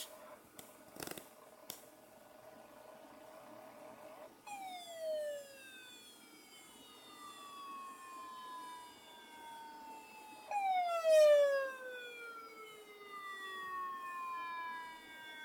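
IBM ThinkPad 560 laptop making strange electronic sounds. A few clicks and a steady tone come first. Then a tone starts abruptly and glides slowly down in pitch over several seconds, and the whole falling tone starts again about six seconds later.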